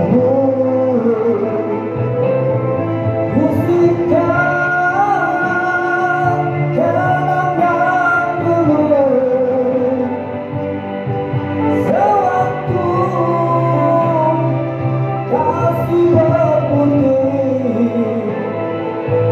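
A man singing a slow, gliding vocal melody into a microphone over backing music.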